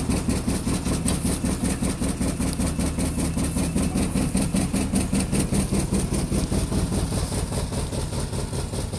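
Bolinder Munktell Victor 230 tractor engine idling, a steady, even chugging.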